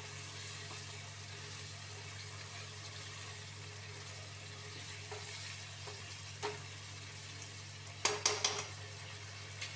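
Chicken keema in a watery yogurt gravy simmering and sizzling in a non-stick pan with a steady hiss over a low hum. A spatula stirs and scrapes against the pan, with a few single knocks and a loud cluster of knocks about eight seconds in.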